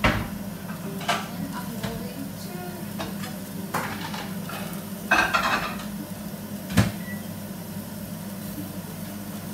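Scattered clinks and knocks of pots and utensils, with a burst of clatter about five seconds in and one sharp knock near seven seconds, over a steady low hum. Fish fillets sizzle faintly under a glass pan lid.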